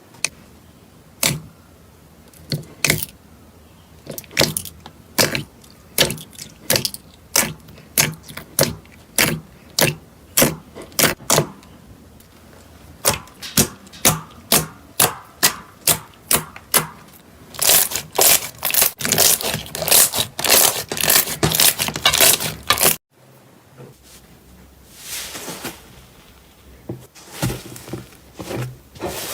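Slime being squeezed and worked, giving a run of sharp pops and clicks at about two a second that quicken into dense crackling. After a sudden cut about 23 seconds in, softer crunching follows.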